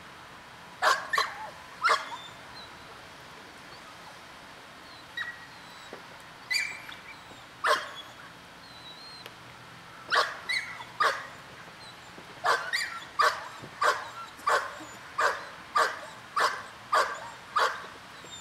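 A dog barking in sharp single barks: a few scattered at first, then a steady run of about a dozen, more than one a second, in the second half. The dog is upset and agitated.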